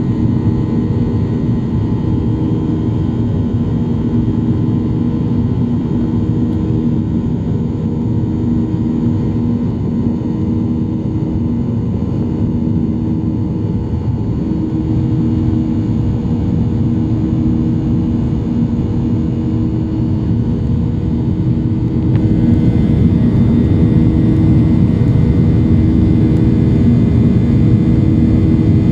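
Steady jet-engine and airflow noise of a Boeing 737-800 with CFM56-7B engines, heard as a continuous rumble with a few steady held tones. It grows a little louder about three-quarters of the way through.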